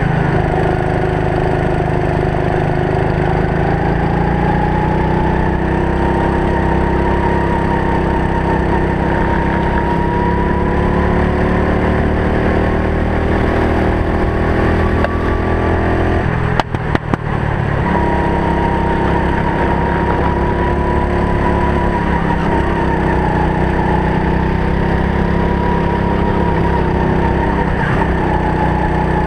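Racing kart engine running under load, heard from the driver's helmet camera, its pitch rising and falling with the throttle. The sound breaks up and dips for about a second midway.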